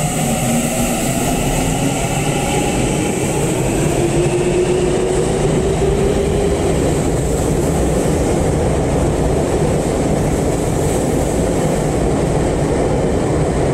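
Subway train pulling out of an underground station and passing close by, with a steady rumble and wheel noise. The electric traction motors whine, rising in pitch over the first six seconds or so as the train accelerates.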